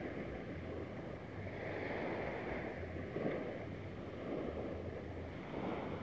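Small waves of a calm sea washing onto a sandy beach in slow swells, with wind buffeting the microphone in low rumbles.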